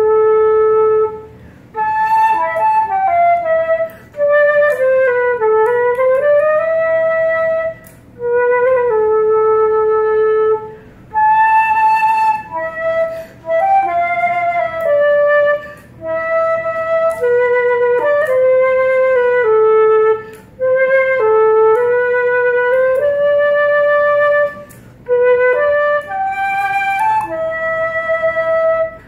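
Solo concert flute playing a Hanukkah song melody, one line of held and stepping notes in short phrases broken by brief breath pauses every three to five seconds.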